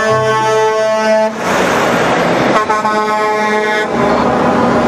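Air horn of a passing Mack semi-truck sounding in two long blasts, the second about a second after the first ends, over a steady rush of truck engine and road noise.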